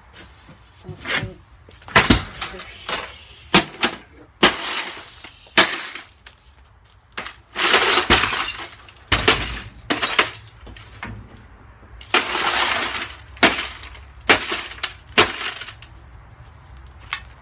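HP DeskJet 3520 all-in-one printer being smashed: a dozen or more hard, irregular blows with plastic and glass cracking and breaking, including two longer crashing stretches in the middle.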